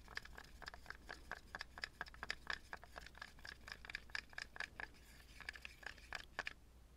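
Stir stick scraping round the sides of a small paper cup while mixing two-part clear casting resin and hardener, in quick faint strokes about three to four a second that stop shortly before the end.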